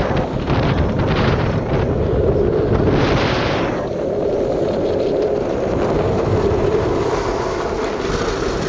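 Street luge speeding downhill on asphalt: its wheels roll with a steady hum while wind rushes over the microphone.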